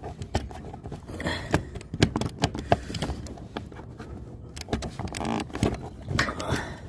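Irregular clicks, knocks and short scrapes of plastic and metal as the timer knob is worked off a dryer's control panel.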